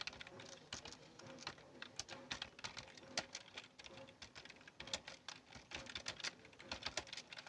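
Computer keyboard being typed on steadily: uneven key clicks, several a second, as in a timed typing test.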